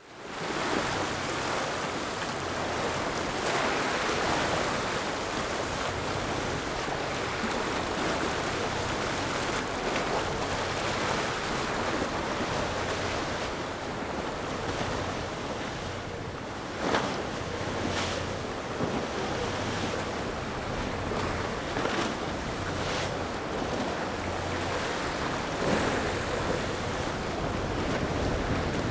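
Choppy water and wave wash splashing, with wind buffeting the microphone, under a faint low hum from the engines of a Sunseeker Manhattan 63 motor yacht running past. A few sudden sharp sounds stand out, about halfway through and again near the end.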